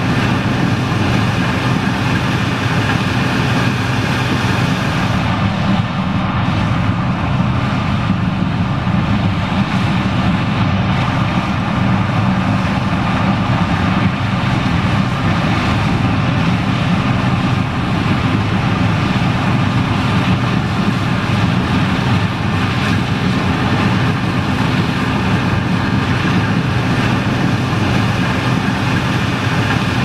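John Deere 9560STS combine running steadily under load while harvesting corn: its engine and threshing machinery make a constant hum of several steady tones.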